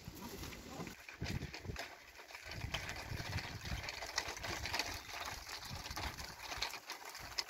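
Footsteps and wheels crunching and scuffing on a gravelly dirt lane: an irregular patter of small clicks over a low rumble.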